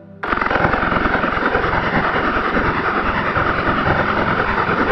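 Loud edited-in background music with a fast, dense, driving beat, cutting back in abruptly just after the start following a brief drop-out.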